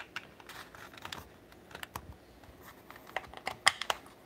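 Irregular light plastic clicks and taps from a small folding drone being handled, its arms and propellers moved in the hand. The loudest click comes a little before the end.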